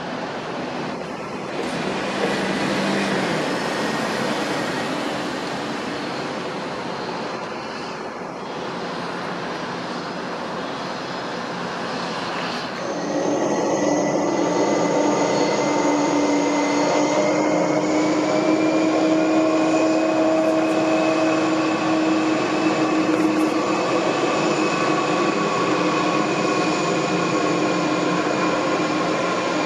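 Jet airliner engines running with a loud rumble. About halfway through it grows louder and a set of steady high whining tones comes in, one of them rising slightly.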